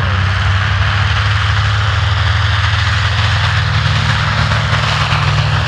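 North American B-25 Mitchell's two Wright R-2600 radial engines running at high power with propeller noise, a loud, steady low drone, as the bomber accelerates along the runway on its takeoff run.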